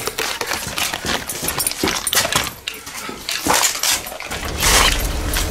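A quick run of sharp clatters and knocks, as of small hard objects rattling and striking. Background music comes in near the end.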